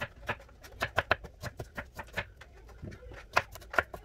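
Knife chopping an onion on a wooden cutting board: irregular knocks of the blade against the board, a few a second.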